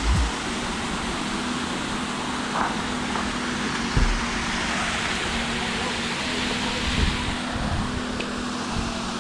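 Steady rush of falling water from a waterfall, with a few dull low thumps.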